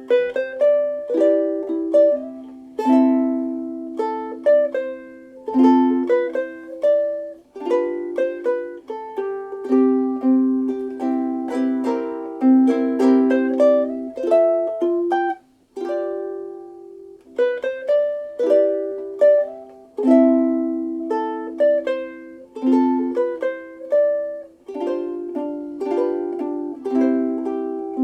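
Soprano ukulele with a solid African mahogany Ditson-style dreadnought body, played solo. Plucked single notes and chords run in phrases, with a brief pause a little past halfway.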